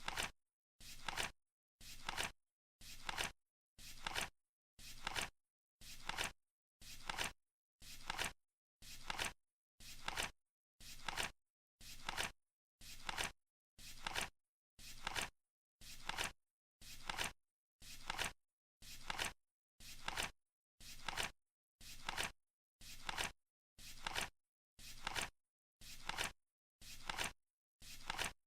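Flip clock's seconds flap turning over once a second: a short flap sound of about half a second, repeated evenly, with silence between each.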